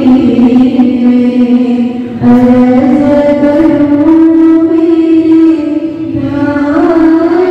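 Voices singing a slow devotional chant in long held notes, the melody stepping between a few pitches, with a short breath break about two seconds in.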